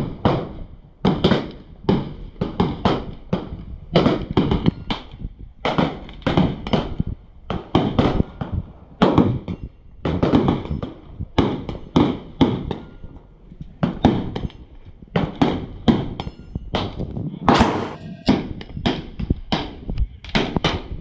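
Gunfire from many shooters on an outdoor range firing line: irregular, overlapping shots, often two or three a second, each trailing a short echo.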